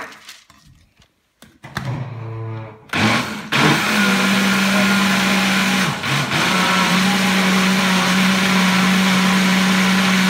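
A few clicks and knocks, then an electric jug blender starts about three seconds in and runs steadily with a constant motor hum, blending mango puree with sugar. Its sound dips briefly about six seconds in.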